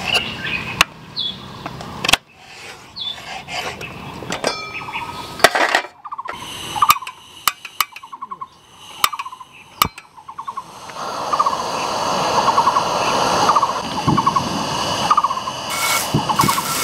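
Camping gas stove burning under a frying pan, with sharp knocks and clicks of cookware being handled and a steady rushing noise that comes up from about eleven seconds in. A bird gives short trills over and over through the second half. Near the end butter goes into the smoking-hot pan and starts to sizzle.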